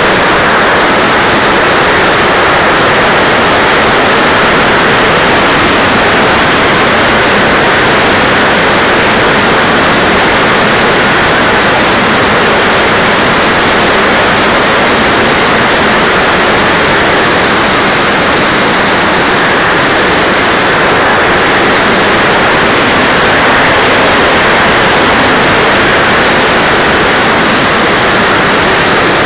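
Radio-controlled model jet in flight, heard from its onboard camera: a loud, steady rushing roar of its engine and the airflow over the airframe, with no distinct tones and hardly any change in level.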